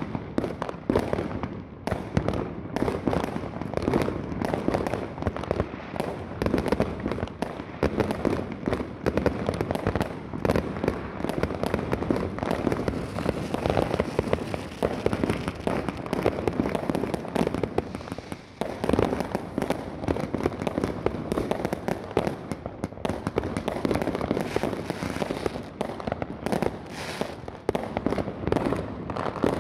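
Many fireworks and firecrackers going off in quick succession: a dense, unbroken barrage of bangs and crackles.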